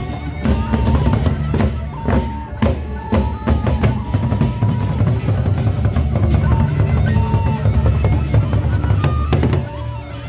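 A gendang beleq ensemble of large double-headed barrel drums beaten in a fast, dense rhythm, with sharp clashes of hand cymbals. The low drumming thins out briefly near the end.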